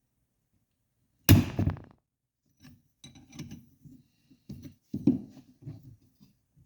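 A single loud, sharp pop about a second in, with a brief ring: the Honda TRX250R's flywheel breaking loose from the crankshaft taper under a threaded flywheel puller. Quieter knocks and tool handling follow.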